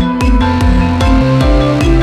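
Electronic background music with held synth notes and a steady beat.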